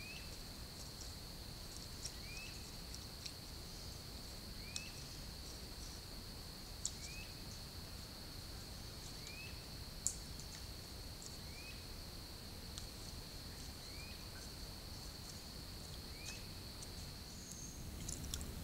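Swamp ambience: a steady high-pitched insect trill, with a short arched chirp repeating about every two seconds and a few faint ticks.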